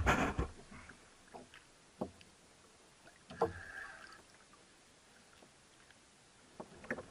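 Water slapping against a kayak's hull in small, irregular splashes, with a few sharp knocks. The loudest knock is right at the start and another comes about three and a half seconds in.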